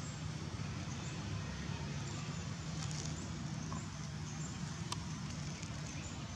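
Steady outdoor background rumble and hiss, with a low hum like distant traffic, and a few faint clicks about three and five seconds in.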